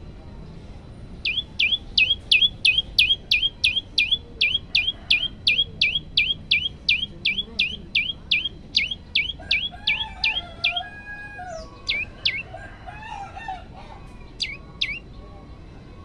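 Common tailorbird (Orthotomus sutorius) singing a fast, even run of loud, sharp notes, about three a second, each a quick falling whistle with a short upturn at the end. The run stops about two-thirds of the way in, and a few short pairs of the same note follow, with fainter lower chirping behind them.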